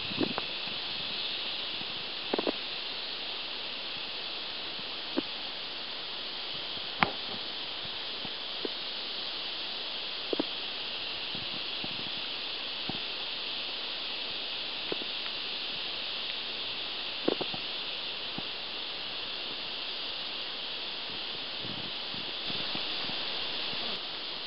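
Outdoor river ambience: a steady high-pitched hiss, with a few scattered small knocks and splashes.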